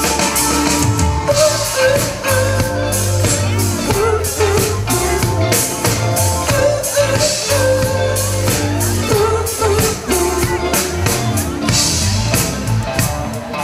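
A rock band playing live through an instrumental passage of a song: drum kit and a steady bass line under a long-held lead melody that bends in pitch.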